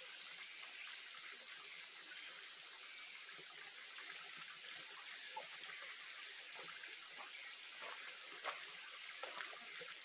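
Valley stream running steadily, with many small gurgles and splashes in the flow. A steady high-pitched insect buzz sits above the water.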